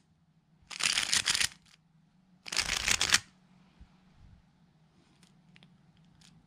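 MoYu RS3M 2020 magnetic 3x3 speedcube being turned fast: two quick bursts of rapid layer-turn clicking, each under a second and about a second apart, each one a run of the Jb-perm PLL algorithm. A few faint clicks follow near the end.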